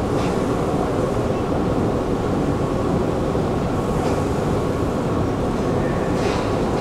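Steady low rumble of a metro station's ambient noise, unchanging throughout, with a faint steady hum and a few brief soft hisses over it.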